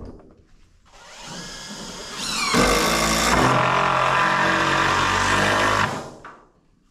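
DeWalt cordless impact driver driving a long fastener into a rim joist: the motor spins up, the hammering kicks in with a quick rise in pitch about two and a half seconds in, then runs loud and steady for about three seconds before stopping.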